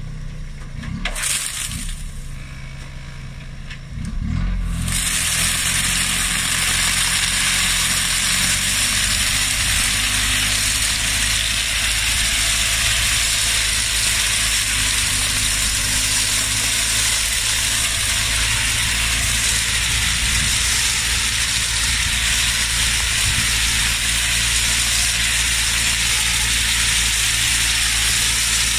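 Tractor-operated sugarcane leaf remover at work in a cane row. Its engine is heard running low at first; from about four and a half seconds in comes a loud, steady rush of noise as the machine strips dry leaves off the standing stalks.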